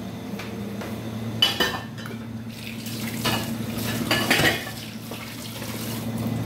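Dishes and containers clinking and clattering as they are handled, with sharp knocks about a second and a half in, around three seconds and around four seconds. A steady low hum runs underneath.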